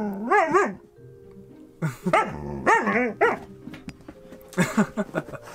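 Husky 'talking' in short yips and woos that bend up and down in pitch, in four short bursts.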